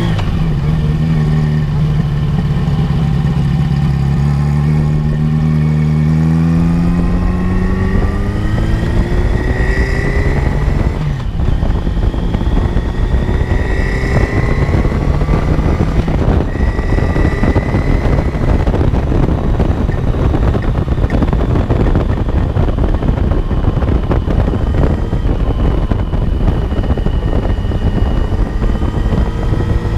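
A 1982 Yamaha XJ750 Seca's air-cooled inline four running under way, heard from close to the bike. Its note rises steadily as it accelerates over the first several seconds, then climbs again a few more times. Wind noise on the microphone builds as speed picks up.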